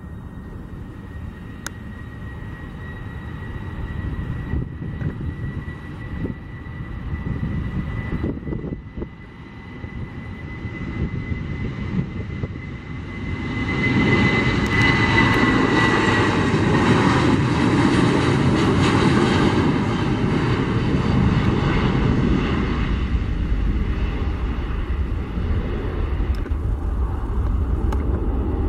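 Boeing 737-700 jet engines (CFM56-7B turbofans) at takeoff: a high engine whine rising slightly over a low rumble, then about 13 seconds in the sound swells into a loud, steady jet roar as the aircraft speeds down the runway and lifts off.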